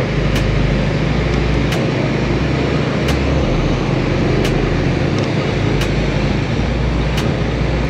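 Honda Winner X motorcycle running at a steady cruising speed, its engine hum mixed with steady wind and road noise. A sharp tick repeats about every second and a half.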